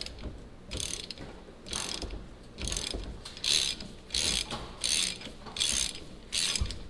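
Ratchet wrench clicking in about eight bursts, roughly one a second, as the handle is swung back and forth to turn a gear puller's forcing screw. The puller is pressing the pinion yoke off the splines of a GMC Sierra's rear axle.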